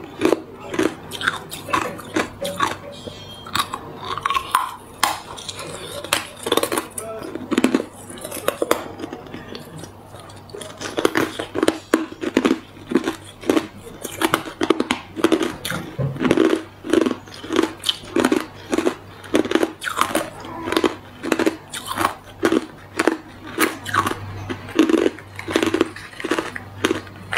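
A person biting and chewing chunks of hard clear ice: a run of sharp, loud crunches, scattered for the first ten seconds or so, then coming steadily at roughly two a second.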